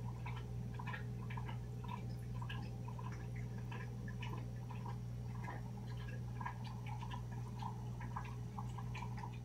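Running aquarium filtration: a steady low electric hum under an irregular patter of small bubbling and dripping water.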